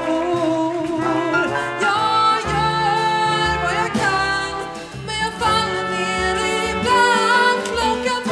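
A live jazz band playing: a woman singing over trumpet, upright bass and drums with cymbals.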